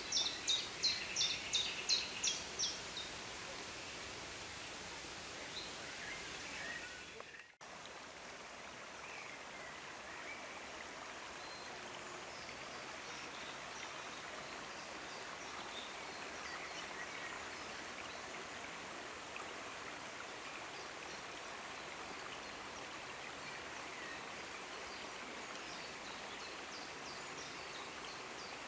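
A bird calling in a quick series of sharp high notes, about three a second, for the first few seconds. After a brief dropout, a steady outdoor hiss follows, with faint distant bird calls now and then.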